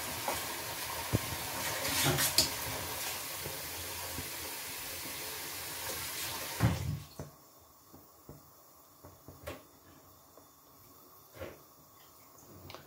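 Pot of seasoned fish stock bubbling on the stove: a steady hiss of simmering liquid with an occasional pop. About seven seconds in there is a louder knock, and then the sound drops to near quiet with a few faint clicks.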